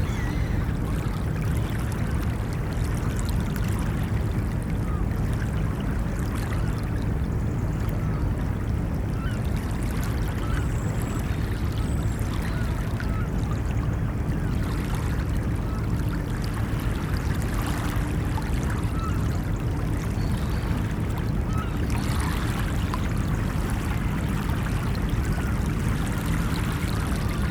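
Ocean water washing against a beach in a continuous, even wash, with no single wave break standing out.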